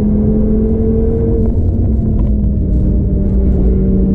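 Stage 2-tuned 2013 Audi TT RS's turbocharged five-cylinder engine pulling steadily at speed through a bend, with tyre and road rumble. The engine note climbs slightly, then eases back a little about halfway through.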